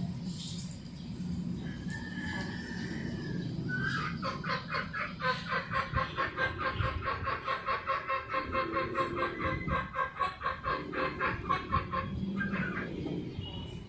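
Chicken clucking in a fast, even run of about five clucks a second, starting about four seconds in and lasting some eight seconds.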